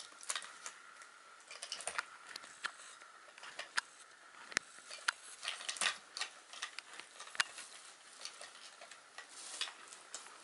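Irregular light clicks, taps and crinkles of a puppy chewing and pushing a small plastic toy car with a paper slip in it, teeth and wheels knocking on the plastic. A faint steady tone fades out in the first couple of seconds.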